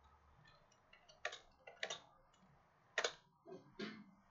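A few faint, sharp clicks of computer keys being typed, spaced irregularly.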